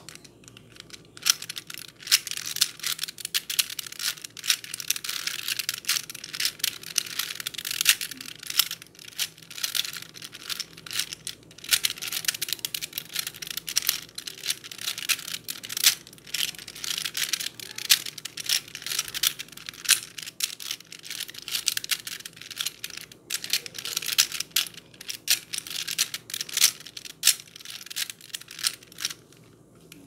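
Plastic 3x3 Rubik's cube being turned fast by hand: a rapid, irregular clatter of its layers clicking and rattling, starting about a second in and stopping just before the end.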